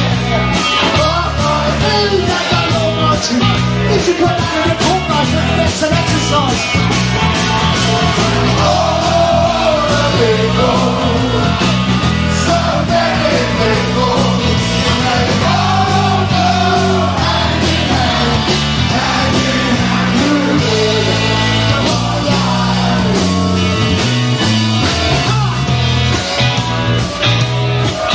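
Live rock band playing loudly through a PA: electric guitar, bass guitar and drum kit keeping a steady beat, with singing over the top.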